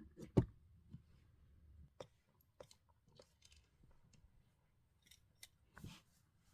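Pen and paper handled on a desk during handwriting practice: a sharp tap about half a second in, then scattered light clicks, ticks and short paper rustles.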